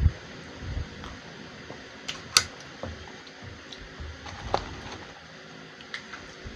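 Light handling noises of a fast-food meal at a table: paper drink cups set down and food and packaging picked up, giving a low thump at the very start and a few scattered sharp clicks, the loudest about two and a half seconds in. A steady hiss runs underneath.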